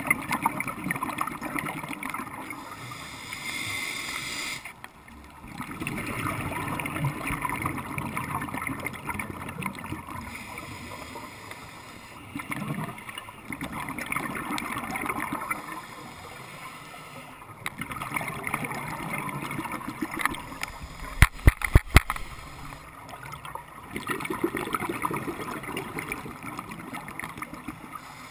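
Scuba diver breathing through a regulator, heard underwater: bursts of bubbling exhalation every few seconds, with the hiss of an inhalation about three seconds in. About three-quarters of the way through comes a quick run of sharp clicks, the loudest sound.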